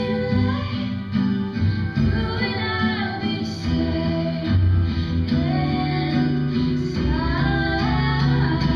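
A song: a female voice singing a melody over plucked guitar accompaniment.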